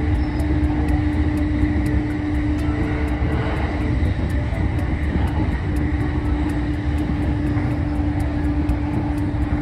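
Inside a JR Shonan-Shinjuku Line commuter electric train running at speed: a steady rumble of wheels on rail with a constant motor hum, which fades for a moment about halfway through and then returns.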